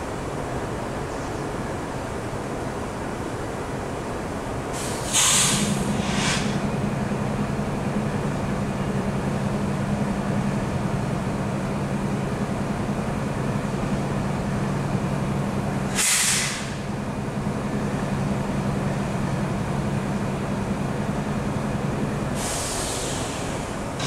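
Freight train rumbling, with a steady low drone that starts about five seconds in and stops near the end. Short hissing bursts come three times: about five, sixteen and twenty-two seconds in.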